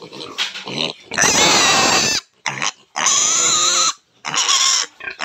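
Yorkshire piglet squealing loudly as it is held up off the ground: three long, wavering, high-pitched squeals of about a second each, after a few shorter grunts in the first second.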